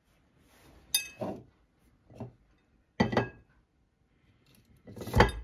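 A plastic cheese mould and the fresh cheese in it clinking and knocking against a ceramic plate as the cheese is turned over. There is a sharp clink about a second in, a louder knock with a brief ring about three seconds in, and a heavier thump near the end.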